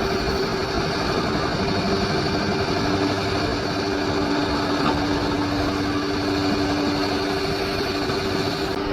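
Bulldozer's diesel engine running steadily, with a steady whine. A second, lower whine comes in about three seconds in and fades out just before the end.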